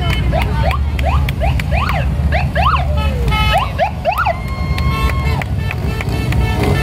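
Motorcycle engines rumbling as a column of bikes passes on the highway. Over it come quick rising-and-falling whoops, several a second, and a steady tone holds for about a second about two-thirds of the way through.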